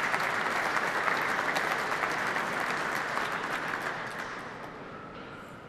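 Audience applauding with dense clapping that dies away over the last second or two.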